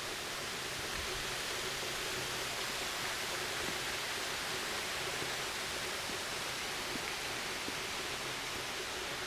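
Steady, even hiss with a faint low hum beneath it and no distinct sounds.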